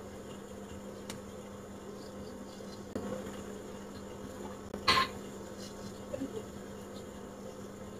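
Steady low hum under light handling sounds of paper picture cards being placed on a cardboard teaching board, with a few soft clicks and one short, sharp rustle about five seconds in.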